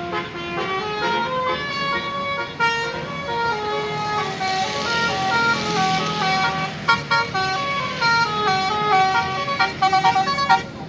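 A bus's Basuri telolet musical air horn plays a tune: a run of short stepped horn notes that keeps going, with a swell of hiss about halfway through.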